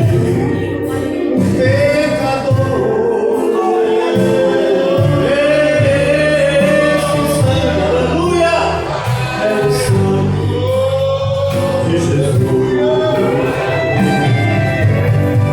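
Gospel praise song: a man singing over instrumental backing.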